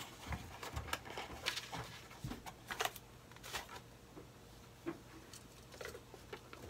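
Small cardboard box and paper packaging being handled and opened by hand: scattered light rustles, taps and clicks at an irregular pace.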